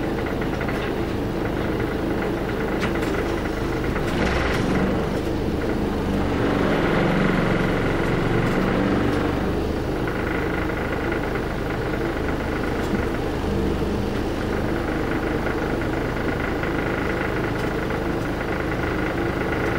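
Large bus's diesel engine running at low speed, heard from inside the cabin, a little louder for a few seconds in the middle.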